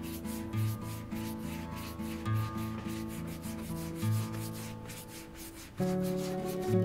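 Small wooden-handled dauber brush rubbing cream into a leather boot's upper in quick repeated strokes, over soft background music with sustained chords.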